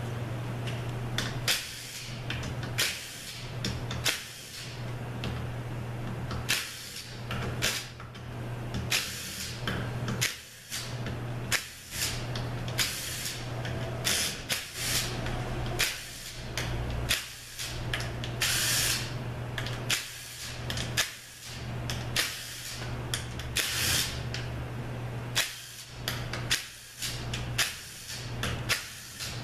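Cordless drill/driver backing out the bolts of an A4LD transmission's valve body one after another, in many short runs of about a second each with brief pauses between.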